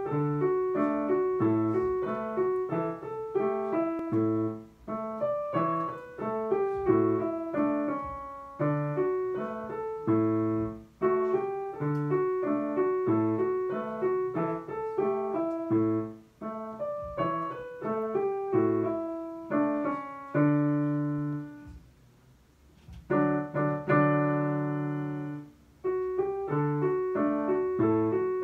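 Digital piano playing a simple beginner's piece with both hands, a steady stream of single notes over a bass line. About three-quarters through the playing stops briefly, then a long chord is held and the piece picks up again.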